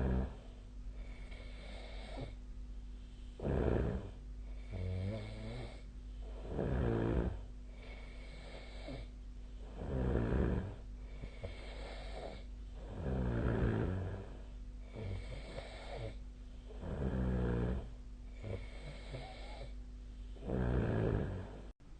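A person snoring in sleep: seven loud, rattling in-breath snores, one about every three and a half seconds, each followed by a softer breath out.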